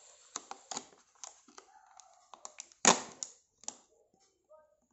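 Hands opening earphone packaging: scattered light clicks and rustles, with one loud knock about three seconds in.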